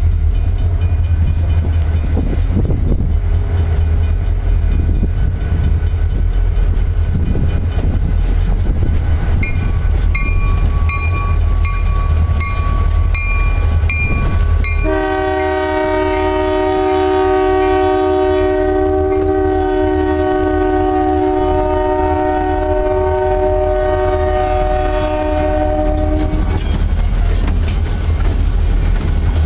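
Diesel freight locomotives rumbling past on the move, with a bell ringing just under twice a second for several seconds. Then one long, steady multi-tone air horn blast lasting about eleven seconds.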